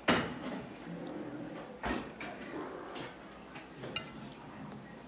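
Cutlery knocking and clinking against a plate: a loud sharp knock right at the start, another about two seconds in, and a few lighter clicks, one near the end ringing briefly.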